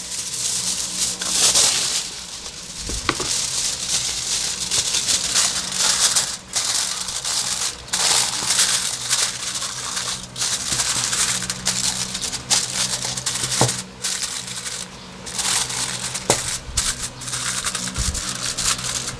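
Aluminum foil crinkling and rustling as it is folded and pressed by hand around a metal loaf pan, with a few brief pauses.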